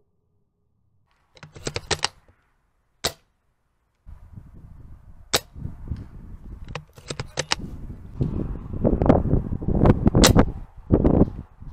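Airsoft guns firing: a quick burst of rapid shots, then single sharp shots, with more shots later. From the middle on, a heavy rumbling noise on the microphone builds and is loudest near the end.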